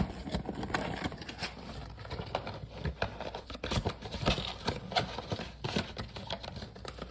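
Trading-card packs and their cardboard box being handled: irregular rustling, crinkling and light taps.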